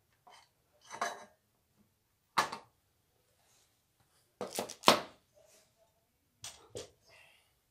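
Handling knocks and clacks of Creality Ender 3 Pro parts as the metal power supply unit and the aluminium frame are moved and set down: about six separate knocks, the loudest a pair about five seconds in.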